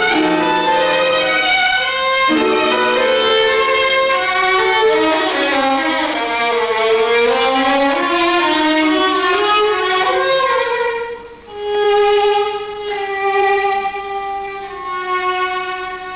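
Solo violin playing a slow, singing melody with vibrato. The line falls and rises, then settles on long held notes and grows softer near the end.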